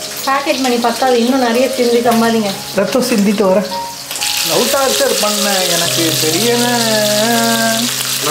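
Background song with a sung melody and long held notes. About four seconds in, the sizzling of seer fish slices shallow-frying in hot oil in a pan comes in and carries on steadily under the music.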